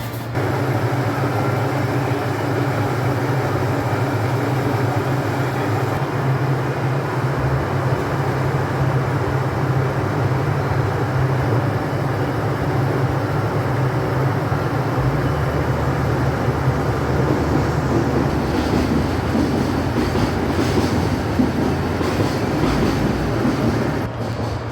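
KiHa 85 series diesel railcar's engines running with a steady low hum, over a constant rushing noise.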